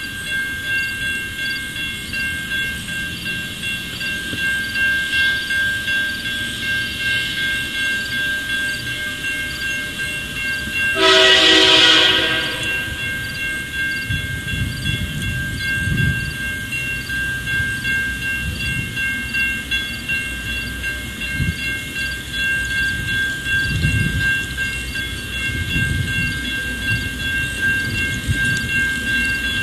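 A locomotive air horn sounds one loud blast of about a second and a half, about eleven seconds in, from a CSX freight train approaching out of sight. A grade-crossing bell rings steadily throughout, and from about halfway a low rumble of the oncoming train builds.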